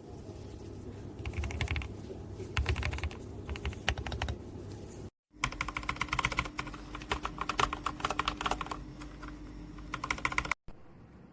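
Mechanical keyboard fitted with factory-lubed Gateron Pro Milky Yellow linear switches being typed on, with rapid runs of keystrokes. Two stretches of typing are split by a brief break about five seconds in, and the typing stops abruptly near the end.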